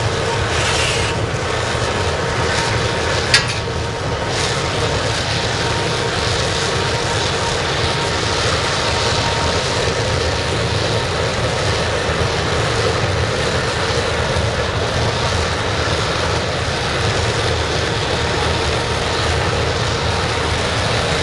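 Waste-oil burner firing a scrapping furnace, running with a steady, loud rushing noise and its fuel valve less than half open. A single sharp click about three seconds in.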